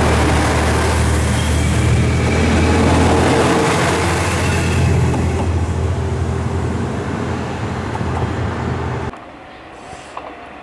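JR Shikoku 1000-series diesel railcar's engine running with a steady low hum as the railcar pulls slowly away from the platform, fading over several seconds. About nine seconds in the sound cuts off abruptly to a much quieter scene with a few faint clicks.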